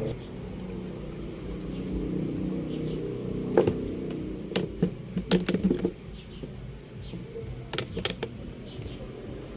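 A handful of sharp clicks and taps from handling an LED TV's circuit board and cable connectors, over a low steady background sound that fades about six seconds in.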